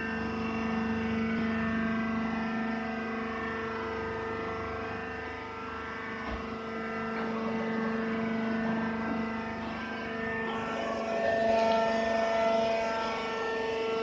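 Rice husk baler machine running with a steady drone made of several held tones; a few higher tones join about ten seconds in.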